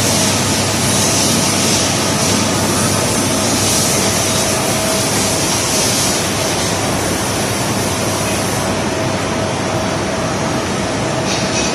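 Industrial tunnel dryer running: a steady rush of air with a constant hum under it.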